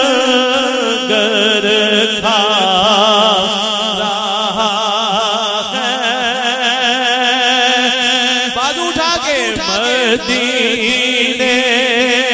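A man's voice singing a naat through a microphone, holding long notes with a wide wavering vibrato and ornamented melodic turns, with a sweeping glide in pitch about nine seconds in.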